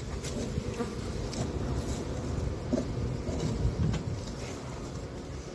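Honey bees buzzing in a steady mass hum over an opened hive box, with a few faint clicks.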